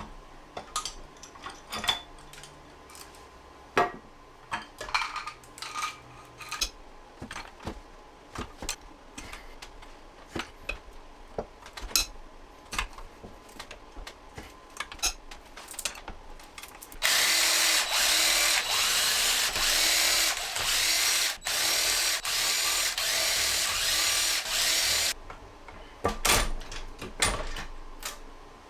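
Hand tools and metal engine parts clinking and knocking. Then a cordless power tool spins loudly in a string of short runs for about eight seconds, backing out bolts while the motorcycle engine's top end is stripped. A few more metal knocks come near the end.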